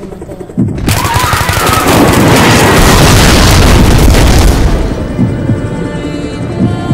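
A sudden loud rush of crashing surf about a second in, swelling for a few seconds and then dying away. It is laid over dark background music with low, spaced pulses.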